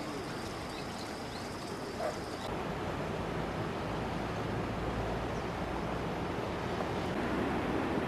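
Steady outdoor rushing noise with no clear single source. A faint steady high tone sits over it for the first two and a half seconds and stops abruptly, after which the rushing grows slightly louder and fuller.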